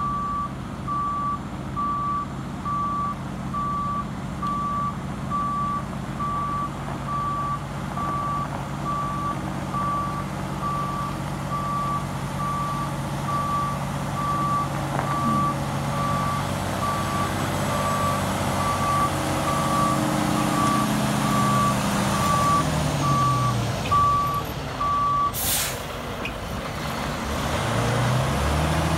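Heavy tow truck backing up, its reversing alarm beeping regularly over the steady running of its diesel engine. About 25 seconds in the beeping stops with a short air-brake hiss; the engine then slows and revs up again near the end.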